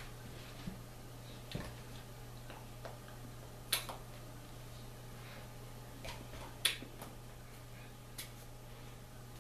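Hands clapping and slapping together in sign-language gestures, heard as a few irregular sharp clicks. The two loudest come about four and seven seconds in, over a steady low hum.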